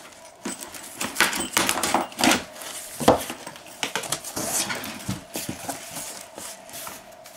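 Packing tape being peeled and ripped off a cardboard box, then the box's cardboard flaps being pulled open and rubbing against each other: a run of irregular crackling rips, scrapes and knocks, the loudest about a second, two seconds and three seconds in.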